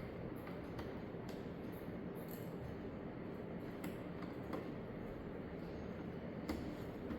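A few faint, scattered clicks and light taps over a steady low background hum.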